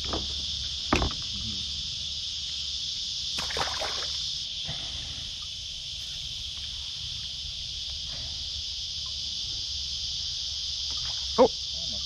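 Cicadas droning in a steady, high-pitched chorus, with a short knock about a second in and a brief sharp sound near the end.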